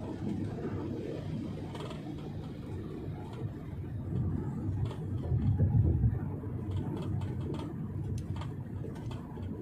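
Wuling Almaz 1.5 turbo SUV on the move: a steady low rumble of engine and road noise that swells briefly a little past halfway.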